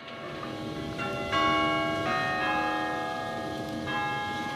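Church tower bells ringing: several bells struck one after another, each note ringing on and overlapping the next as new strikes come in.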